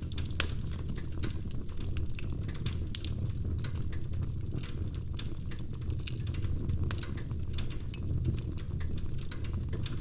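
Wood fire crackling: irregular sharp pops and snaps, several a second, over a low steady rumble of burning logs, with one sharper pop about half a second in.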